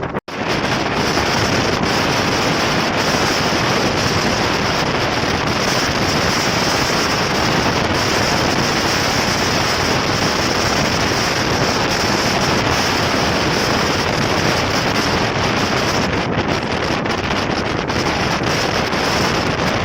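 Steady loud rushing noise of wind on the microphone, with no clear engine note; it cuts out for a split second just after the start.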